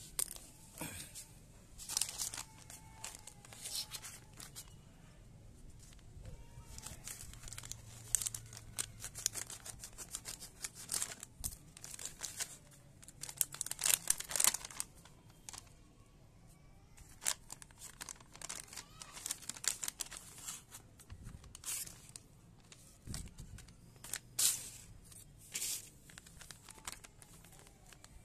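Paper courier envelope being opened by hand: irregular bursts of paper tearing, rustling and crinkling, with the foil seed packet crinkling as it is handled near the end.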